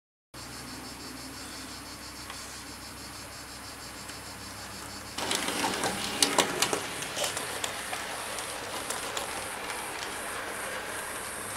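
Model Hornby Jouef 141 TA steam tank locomotive running with a freight train on a model railway: a steady electric motor whir with wheels clicking over rail joints. It grows louder about five seconds in, with a run of sharp clicks.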